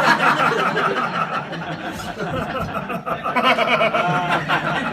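Small audience laughing and chuckling, several voices at once, in response to a joke.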